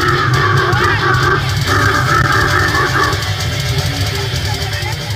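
Death metal band playing: distorted guitar, bass and drums. A high wavering line rides over the first three seconds.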